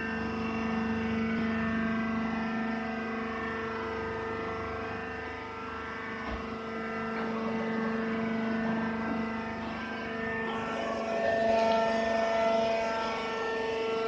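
Automatic sawdust baler's hydraulic power unit running: a steady mechanical drone with a held, pitched whine that gets a little louder about three-quarters of the way in.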